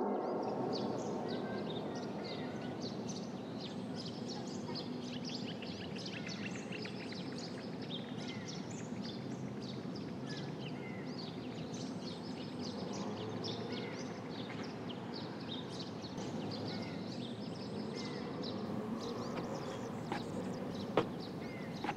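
Outdoor ambience: birds chirping over a steady bed of background noise, with a few sharp taps near the end.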